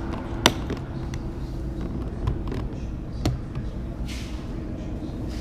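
Sharp clicks and knocks of parts being worked loose on a car door's trim and handle, the loudest about half a second in and another a little after three seconds, over a steady low hum.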